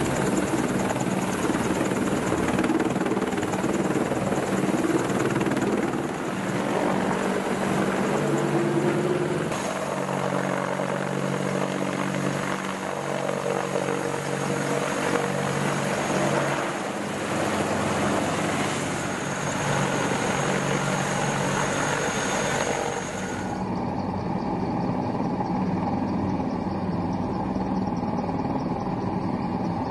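AH-64 Apache attack helicopters' twin turboshaft engines and rotors running steadily, with a high turbine whine over the rotor noise. The whine and the hiss above it drop away sharply about three-quarters of the way through, leaving the lower engine and rotor sound.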